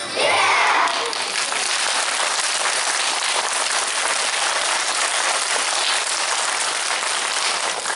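An audience of children clapping and applauding steadily, with a brief shout right at the start, as the song ends.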